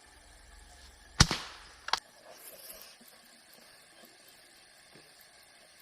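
A single air rifle shot, a sharp crack with a short tail, followed just under a second later by a second, fainter sharp knock.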